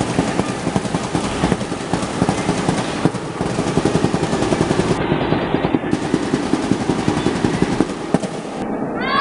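Fast, dense drumming accompanying a cheerdance routine: a rapid rattle of strokes with no melody, easing slightly near the end.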